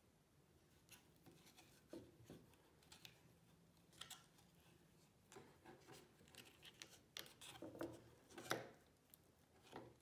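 Faint, scattered rustles and light ticks of fingers handling thread and cardboard while tying a knot, sparse at first and busier near the end.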